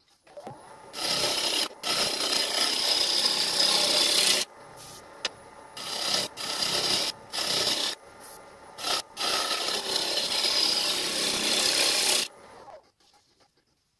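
Bowl gouge cutting a fruitwood bowl blank spinning on a wood lathe: a loud hissing scrape of shavings coming off in passes. There are two long cuts, from about a second in to four seconds and from about nine to twelve seconds, with short cuts between them.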